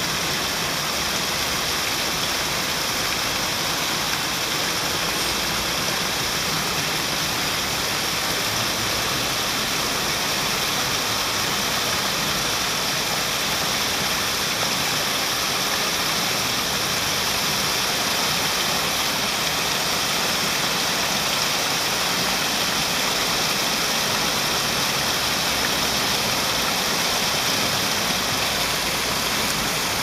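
Steady, unbroken rush of a small stream cascading over rocks.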